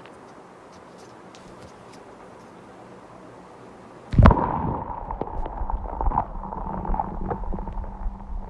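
Experimental soundtrack: a faint hiss with a few light ticks, then about four seconds in a sudden loud burst that settles into a steady hum scattered with crackles and low thumps.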